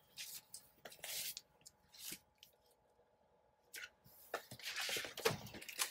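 Paper and craft pieces being handled and shuffled on a table: short rustles, a quiet gap about halfway through, then busier rustling toward the end.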